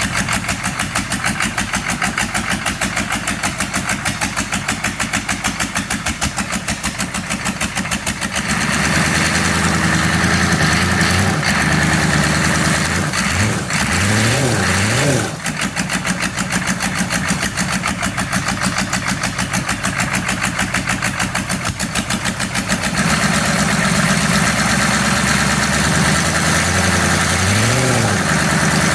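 A 6.5-litre engine idling with a rough, uneven pulse: a rough idle. It is raised to a smoother, faster speed from about a third of the way in, briefly blipped up and down, settles back to the uneven idle, then is raised and blipped again near the end.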